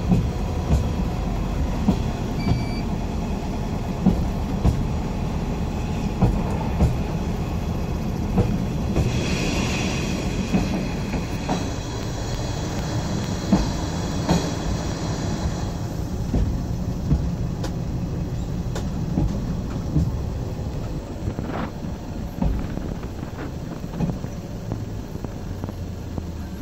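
Asa Kaigan Railway DMV, a dual-mode road/rail minibus, running on rails, heard from inside the cabin. A steady rumble is broken by knocks about once a second as the wheels cross rail joints. A higher hiss and whine lasts about six seconds in the middle, and the vehicle slows near the end.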